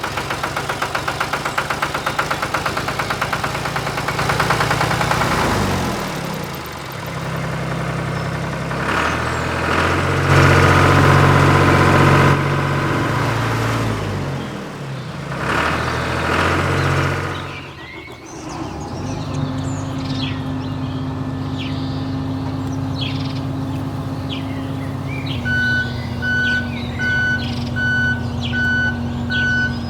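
Vehicle engine revving up and down for the first half, then settling to a steady idle. Near the end a reversing beeper starts, about one beep a second.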